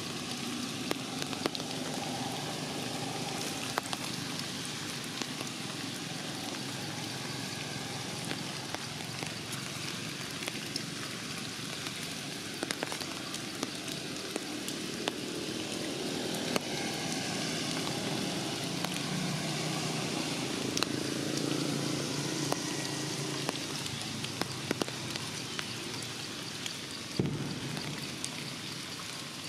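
Rain falling on forest leaves: a steady hiss with many scattered drops tapping throughout.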